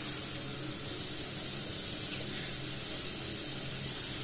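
Whole sea bream sizzling as it lands skin-down on a hot, dry frying pan sprinkled with salt: a steady hiss.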